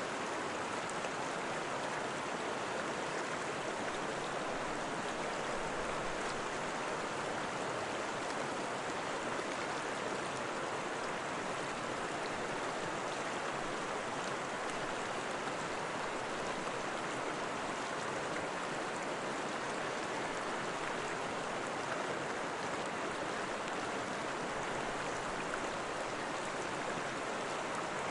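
Flowing water of a stream rushing steadily, an even splashing hiss that does not change.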